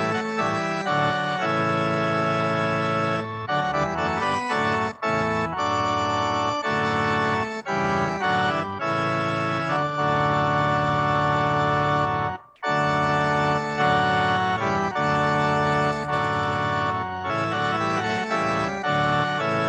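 Organ music: held chords changing every second or two in slow phrases, with a short break about twelve seconds in.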